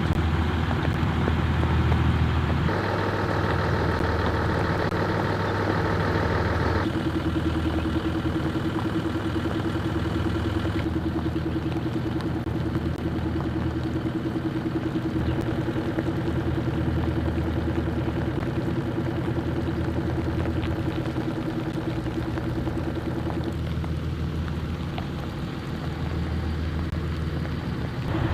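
A steady engine running at idle, its hum shifting abruptly about three and seven seconds in.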